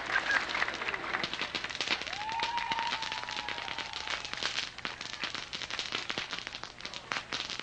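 Crowd applause, dense at first and thinning out toward the end, with one held high-pitched cry or whistle rising out of the crowd about two seconds in.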